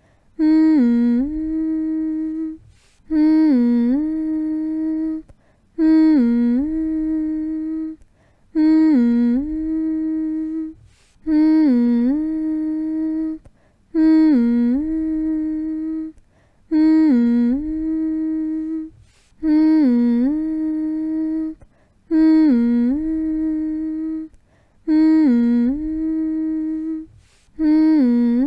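A person humming a soothing baby-calming drone: the same short phrase repeats about every two and a half to three seconds. Each phrase dips in pitch, then holds one steady note, with a brief gap between phrases.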